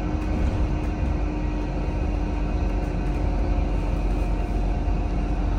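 Steady low rumble of a vehicle driving, with a constant hum underneath.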